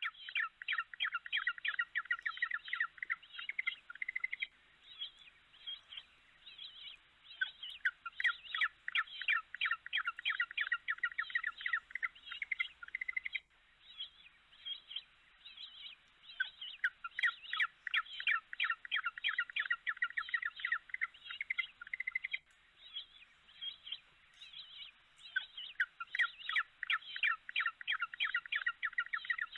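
Many birds chirping rapidly and without pause in high-pitched notes, with two abrupt cuts where the track breaks off and starts again.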